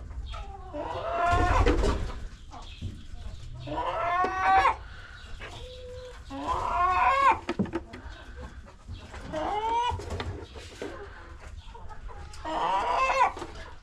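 Domestic hens calling, about five drawn-out squawking calls a few seconds apart, each rising and then falling in pitch.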